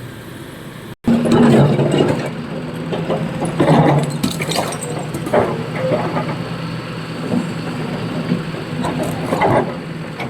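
Diesel excavator engine running under work, with repeated clanks and knocks of stone and steel as it loads a truck. The sound drops out briefly about a second in and comes back louder.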